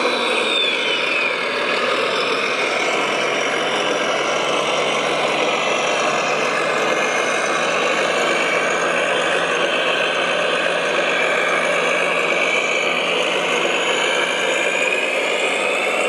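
Radio-controlled scale model of a Volvo A45G articulated dump truck running steadily, giving a continuous engine-like drone. A high whine drops in pitch during the first second or so.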